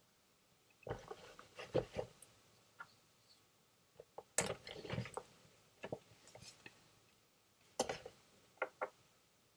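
Small toiletry bottles being handled and packed into a wristlet: scattered soft clicks, taps and rustles at irregular intervals.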